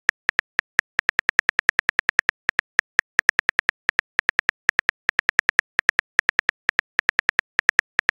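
Phone keyboard key-tap clicks, a quick irregular patter of short sharp ticks, several a second, as a text message is typed letter by letter.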